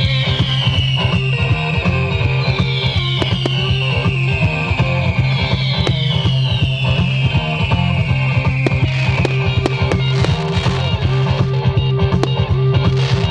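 Loud rock-style music with a steady low bass and three long falling tones, under the pops and bangs of a fireworks display, with fizzing bursts growing from about two thirds of the way in.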